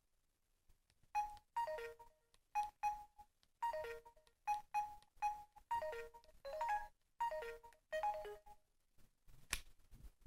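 A bonus ringtone playing on a Samsung J700i phone: short electronic notes in quick repeating phrases, each stepping down in pitch, stopping about eight and a half seconds in. A single click follows near the end.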